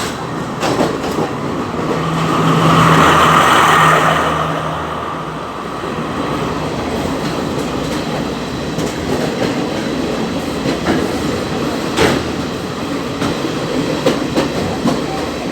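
Train running on the rails with a steady rumble and the clack of wheels over rail joints. Around two seconds in it swells louder, with a low steady tone under it, and eases off after about four seconds; a few sharp knocks come later.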